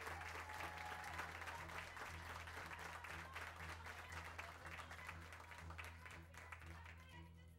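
Applause from a studio audience, a dense patter of clapping that thins out and fades near the end, over a steady low hum.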